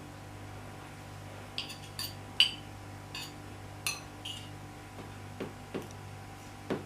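Light clinks and taps of dishes and cutlery, about eight short knocks spread over several seconds, over a steady low hum.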